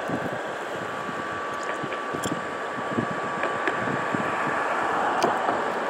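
Steady outdoor rushing noise on a river bridge: fast-moving river water below mixed with road traffic, with a faint steady tone and a few light ticks.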